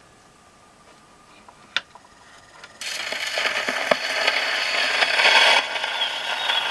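A single sharp click, then the steel needle of an HMV 102 wind-up portable gramophone meets the spinning Goodson celluloid flexi-disc about three seconds in: loud hiss and crackle of the record's surface noise. Near the end a faint wavering high squeak starts, the mouse imitation on the record.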